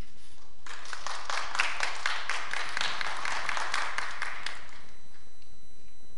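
Audience applauding: a burst of clapping starts just under a second in and dies away after about four seconds.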